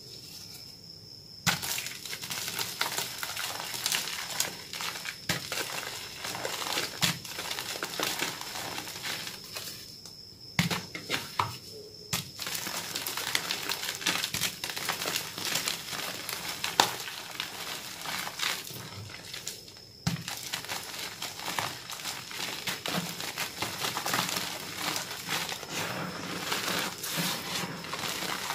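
Hands crushing a heart-shaped block of reformed gym chalk. It cracks open with a sharp snap about a second and a half in. The breaking goes on as continuous crunching and crumbling as the chunks are squeezed and rubbed into powdery crumbs, with a few louder cracks along the way.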